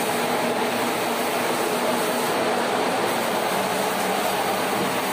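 Steady rushing air noise with a faint low hum, unchanging throughout.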